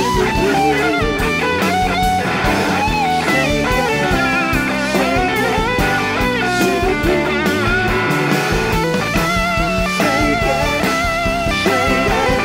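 Live rock band in an instrumental passage: two electric guitars over a drum kit, the lead guitar line sustained and wavering in pitch.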